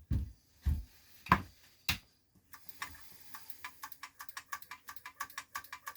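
A few knocks from the IBM 5150's floppy drive mechanism being handled, then its head-stepper mechanism working in an even run of sharp clicks, about six a second, over a faint steady hum, as the freshly oiled parts are worked in.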